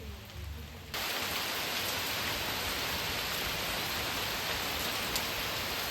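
Heavy rain falling, a steady hiss that starts abruptly about a second in. Before it, a bird calls faintly.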